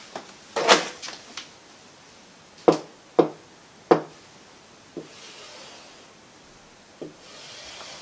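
About half a dozen sharp, irregular taps of a hand on an interactive whiteboard's touchscreen while tools are picked from a menu. Near the end there is a faint, soft rubbing as lines are drawn across the screen.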